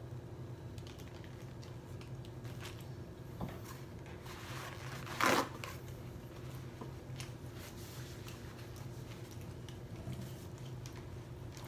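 A paper napkin being pulled out and crinkled, one loud rustle about five seconds in, with a few faint ticks and quiet chewing of a burger over a steady low hum.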